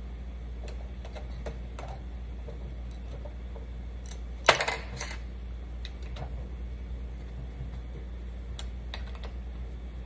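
Light metallic clicks and taps of an Allen wrench working socket cap screws into a small model engine kit's block on a steel workbench, over a low steady hum. A sharper clack comes about four and a half seconds in, and a second one half a second later.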